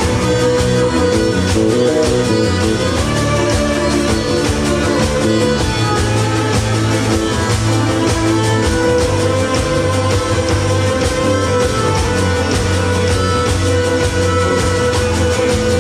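Live instrumental band music: violin, accordion, acoustic guitar and electric bass playing together, with no singing.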